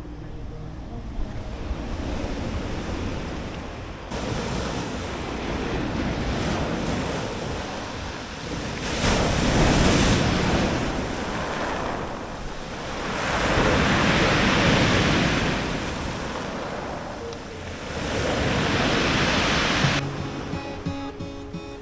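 Sea surf: waves breaking and washing in, three big swells rising and falling, with wind buffeting the microphone. Guitar music comes in near the end.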